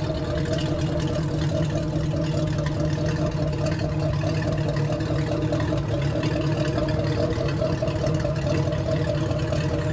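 Motorboat engine idling steadily: a low, even drone that holds the same pitch with no revving.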